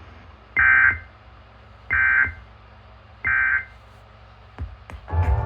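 The EAS/SAME end-of-message data bursts that close a NOAA Weather Radio required weekly test from station WXJ84. Three short, identical digital bursts sound about 1.3 seconds apart. A couple of clicks follow, and music starts just before the end.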